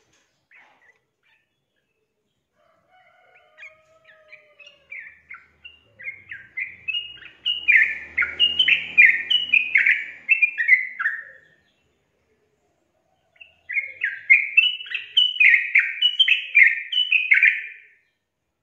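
Yellow-vented bulbul singing a bubbling run of short, quick, falling notes. The song starts softly, grows loud, breaks off for about two seconds, then comes back in a second loud run.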